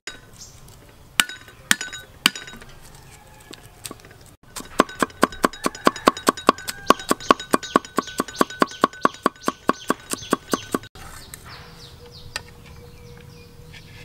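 Cleaver chopping garlic on a wooden chopping block: a few separate strikes in the first seconds, then fast, even chopping at about five strikes a second for about six seconds, stopping about eleven seconds in.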